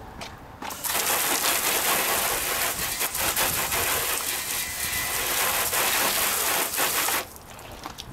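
Spray of water from a hose hitting a car's side panel and splashing, a steady hiss that starts about a second in and cuts off about a second before the end.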